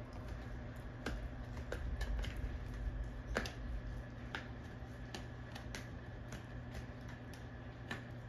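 Belgian Malinois gnawing on a bone: irregular sharp clicks and cracks of teeth on bone, about two a second.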